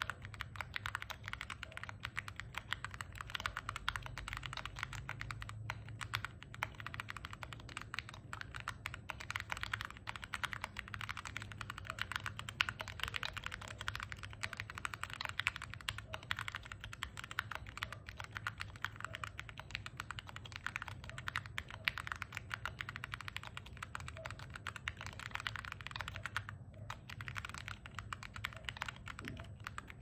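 Continuous fast typing on a Pegasus Alice-layout mechanical keyboard built with Gateron Limbo tactile switches, an FR4 plate and KAT Alpha keycaps: a dense run of key clicks, with one brief pause about three quarters of the way through.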